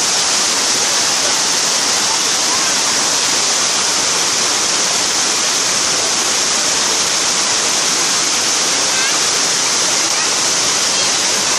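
A steady, even rushing noise at a constant loud level, strongest in the high hiss range.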